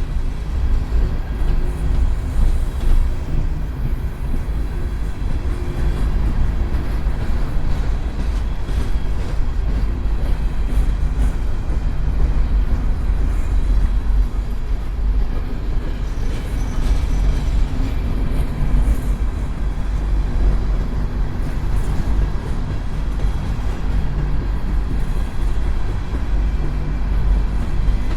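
Empty coal hopper cars of a freight train rolling past, a steady loud noise of steel wheels on rail, heaviest in the low end.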